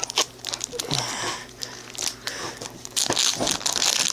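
Foil trading-card booster pack wrapper crinkling and rustling as it is handled and opened, with scattered small crackles.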